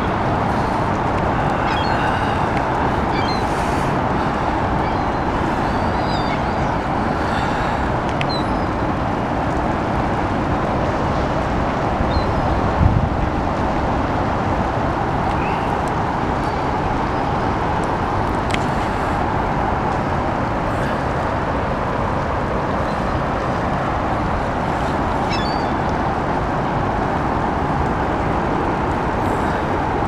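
Gulls giving short calls now and then over a steady low rumble and hiss, with one low thump about thirteen seconds in.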